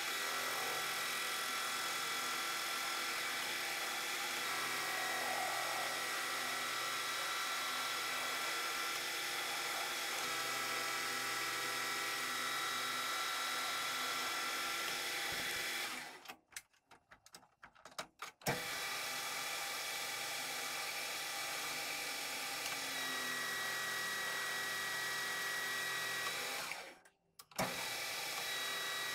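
Metal lathe running with a steady whine as the cutting tool faces and turns a steel pulley blank, throwing stringy chips. The sound cuts out twice, briefly near the middle and again near the end.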